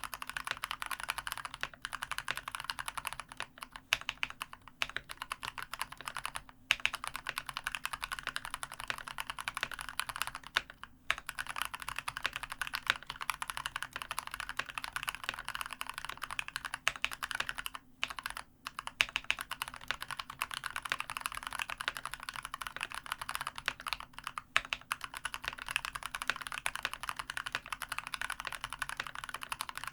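Fast continuous typing on a COX CK108 mechanical keyboard with spray-lubed Gateron Brown tactile switches and a foam-dampened case: a dense stream of soft key clacks, with a few brief pauses.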